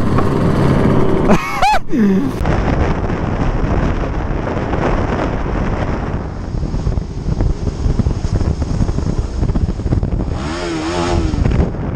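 Helmet-camera ride audio from a Suzuki SV650 motorcycle on a freeway among cars: a steady rush of wind buffeting over the microphone, with engine and road noise underneath. A brief wavering pitched sound comes near the end.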